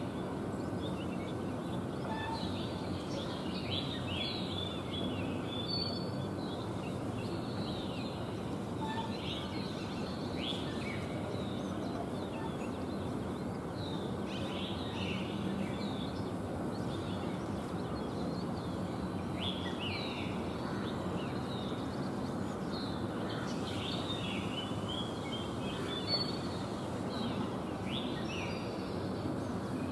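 Small birds chirping over and over in short, high calls that often drop in pitch, over a steady low background noise.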